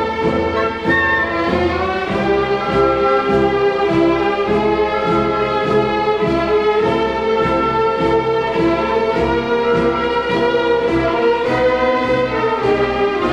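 Orchestral music with bowed strings carrying sustained melody notes over a steady low pulse.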